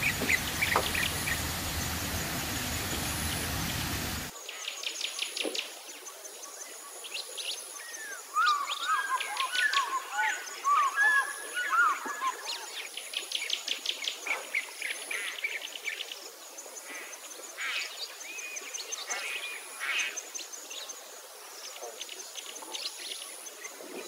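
A small waterfall splashing as an even rush, with a few bird chirps over it, cutting off about four seconds in. Then many birds chirping and trilling in quick high series, with a bout of warbling song near the middle.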